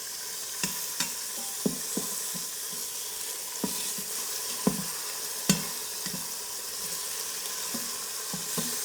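Chicken breast pieces sizzling steadily in hot olive oil in an Instant Pot on sauté, while they brown. About a dozen sharp clicks and knocks sound over the sizzle.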